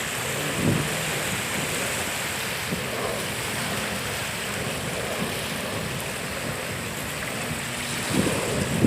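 Small waves washing against the shore, a steady rush of water with wind noise on the microphone, and a brief louder rush near the end.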